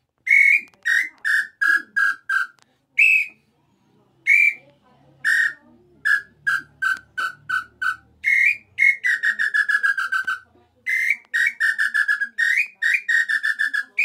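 Tataupa tinamou (inhambu chintã / nambu pé roxo) bird call blown inside cupped hands, the 'bojo' style. It gives several runs of short whistled notes, each opening on a higher note and then falling and quickening, with a few single notes and short pauses in between.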